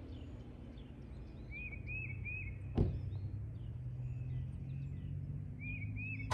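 Car door of a Toyota RAV4 hybrid shut once, a short sharp thud about three seconds in, while songbirds chirp in short runs of two or three. A low steady hum sits underneath.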